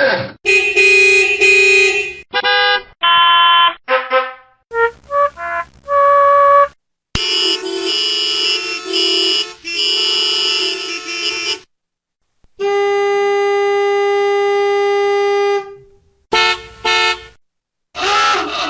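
A run of separate vehicle horn recordings, one after another with short gaps: musical air horns playing short tunes of stepped notes, then long held multi-tone air-horn chords, one held steady for about three seconds, and a few short blasts near the end.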